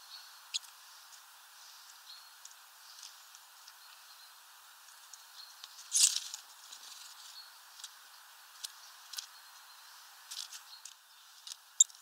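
Small birds feeding on a seed tray: scattered sharp ticks and taps of beaks and feet on seeds and the tray. Halfway through, a short loud flutter of wings as a great tit flies in.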